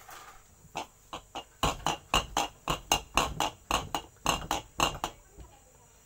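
Petrol sloshing inside a refrigerator compressor shell as it is rocked back and forth, about four sloshes a second, stopping about five seconds in. The petrol is being shaken through the compressor to flush out its dirty, blackened oil.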